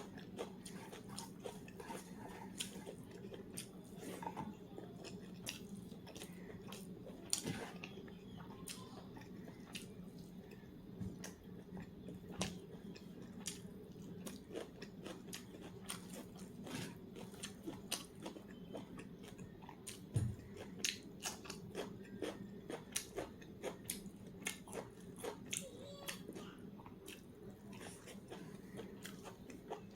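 A person eating: close chewing and biting with irregular crunches and small wet clicks, from a meal of rice and curry with raw cucumber and onion. A steady low hum sits underneath.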